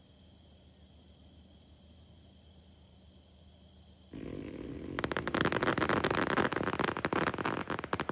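Crickets chirping steadily, then about four seconds in a low rush begins, and a second later a dense crackle of many sharp pops sets in and stops abruptly near the end, typical of crackling fireworks bursting.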